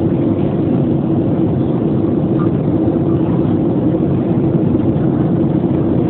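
Steady drone of a Boeing 737's jet engines and air heard inside the passenger cabin, a constant rushing noise with a low steady hum running through it.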